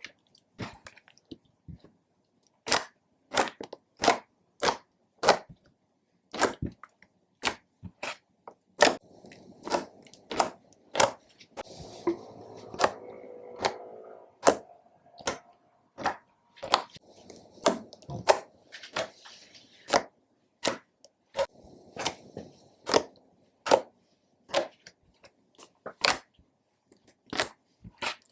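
Slime being kneaded and squeezed by hand, with a run of sharp pops and clicks as trapped air bursts, about one or two a second, and a stretch of softer squelching partway through.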